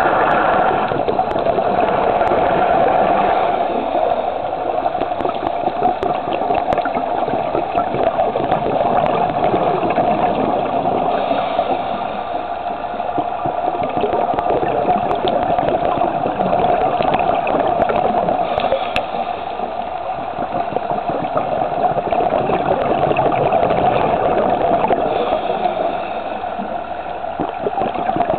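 Underwater sound on a scuba dive: a steady, muffled rushing and gurgling of water and scuba bubbles, dotted with many small crackles, swelling and easing slowly.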